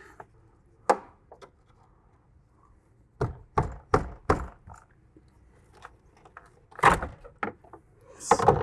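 Knocks and thuds of an old car battery being pried loose and lifted out of its rusty battery box: a single knock, then a quick run of four, and the heaviest thuds near the end.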